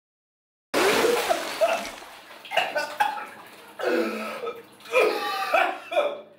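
A man coughing, gasping and retching up water over the edge of a bathtub, in a string of uneven bursts. It starts abruptly about a second in.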